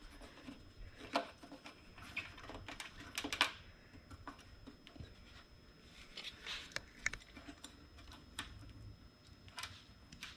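Irregular small clicks and light knocks of hands working a plastic electrical connector loose at a motorcycle fuel pump and handling the parts, a little louder about three and a half seconds in.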